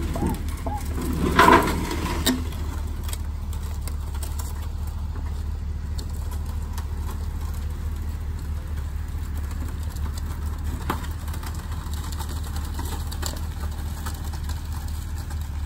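Box truck engine idling steadily. About a second and a half in, a loud metallic clatter as the loaded hand pallet jack comes down off the truck's metal liftgate, with a smaller knock just after.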